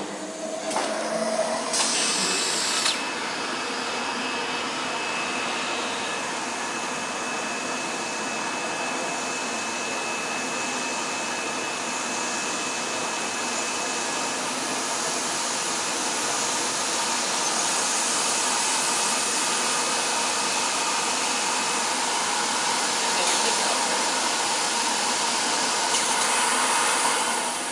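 A CTP plate processor running, with a steady whirring rush from its motors, fans and rollers as plates are fed through. There are a few knocks in the first seconds and a faint high whine through the middle.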